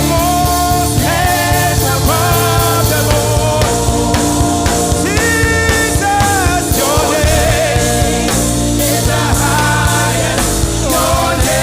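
Gospel praise song with a band and a singer's voice, with a steady drum beat and sustained bass.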